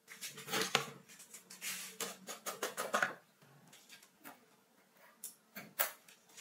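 Plastic flashlight housing being handled and taken apart by hand: a dense run of scrapes and clicks for about three seconds, then a few separate sharp clicks as the front end is worked loose.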